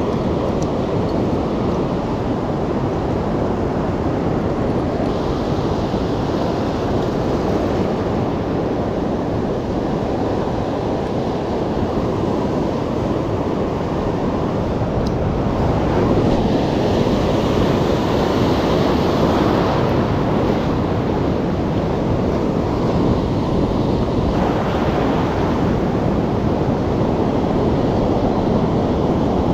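Surf breaking on the beach, a steady rushing wash with wind buffeting the microphone; it swells a little louder a bit past the middle.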